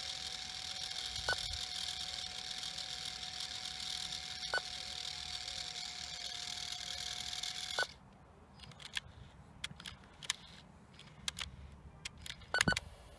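Aiwa HS-PX580 portable cassette player running with a steady hiss, a faint steady tone and a soft click about every three seconds. It stops abruptly about eight seconds in, leaving only scattered small clicks.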